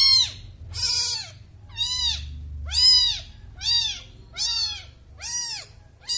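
Newborn kitten mewing over and over, about one shrill cry a second. Each cry rises and then falls in pitch. These are the insistent crying calls of a very young kitten that has been lifted out of the nest.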